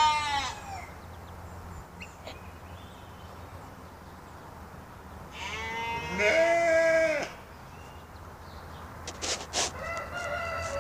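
A farm animal bleating: one long wavering bleat about six seconds in, after the tail of another call at the start. Near the end come a few sharp clicks and the start of another, higher call.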